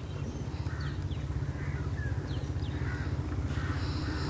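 Crows cawing repeatedly, about one call a second, over a steady low engine rumble, with a few brief high bird chirps.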